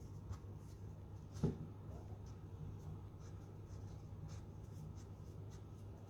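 Light kitchen handling sounds: faint scraping and small clicks over a steady low hum, with one soft thump about a second and a half in.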